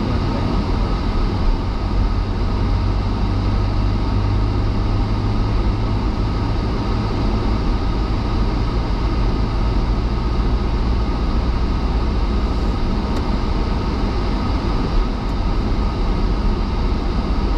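Steady engine and tyre noise of a car driving on a snow-covered road, heard from inside the cabin.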